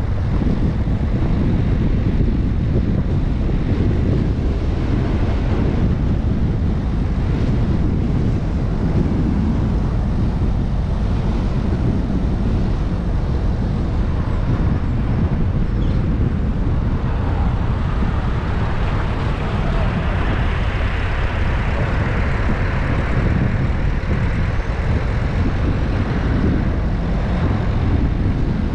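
Car driving along: a steady low rumble of tyre and road noise, with a broader hiss that swells for several seconds past the middle.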